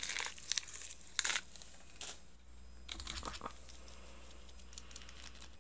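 Small plastic packaging being handled: a few short crinkles and rustles in the first three seconds or so.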